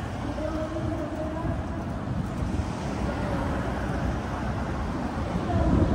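Steady road rumble of a hand-pulled rickshaw's wheels rolling on asphalt, with city traffic passing. A louder rumble swells near the end.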